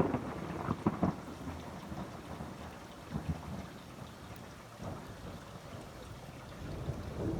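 Thunder rumbling low after a close strike, loudest at the start and dying away over the first few seconds, with rain falling.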